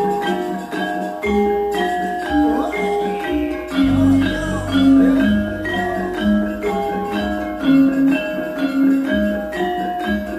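Gamelan-style ebeg accompaniment: a steady run of mallet-struck melody notes over low drum beats, with a deep low stroke ringing about four seconds in.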